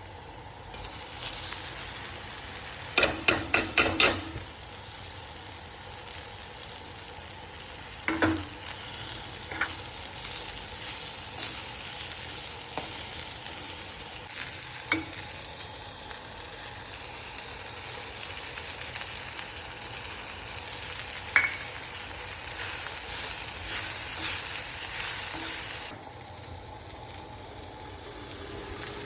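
Cluster beans sizzling in hot oil in a pan as they are stir-fried, with a spatula scraping and clinking against the pan. A quick run of about six sharp knocks comes a few seconds in, and a few single clinks follow. The sizzle drops away sharply near the end.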